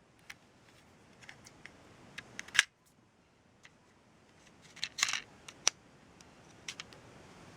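Plastic remote control case being pried open with a guitar pick worked around its seam: scattered light clicks and snaps as the plastic clips give, the sharpest about two and a half seconds in and a small cluster around five seconds.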